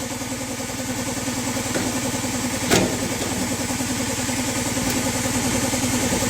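An engine running steadily at idle with a rapid, even pulse. There is one sharp knock a little under three seconds in.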